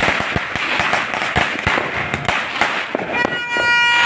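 New Year's firecrackers and fireworks going off: many sharp pops in quick, irregular succession over a constant crackling. Near the end, a steady horn-like tone sounds for about a second.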